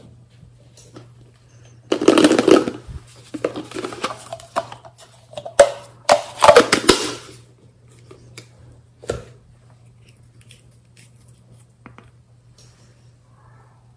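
Close-up handling of containers: a pink plastic lid on a glass jar scraping and rattling in loud bursts about two, four and six to seven seconds in, then a few light clicks as a small glass nail polish bottle is handled, over a steady low hum.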